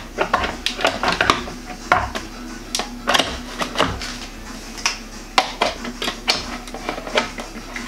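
Plastic parts of a Béaba Babycook baby-food steamer-blender being handled and fitted together: irregular clicks and knocks as the lid and jug are taken off and set back in place.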